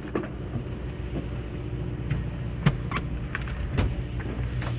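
Steady low hum of a fishing boat's engine running at rest, with a few short clicks or knocks on board.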